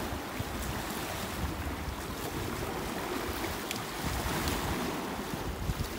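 Small waves washing against rocks below a seawall, with wind buffeting the microphone in an uneven low rumble and a few faint ticks.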